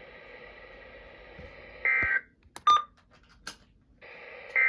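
NOAA Weather Radio broadcast sending its SAME end-of-message data bursts after a warning: a short harsh digital screech about two seconds in and another near the end, with the station's hiss in between. Between the bursts the audio cuts out briefly, with a few sharp clicks.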